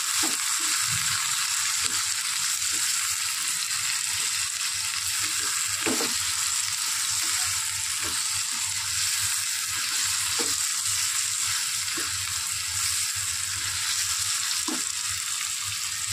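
Sliced ivy gourd (tindora) sizzling steadily as it is fried in a pan, with a few soft knocks as a wooden spatula stirs it.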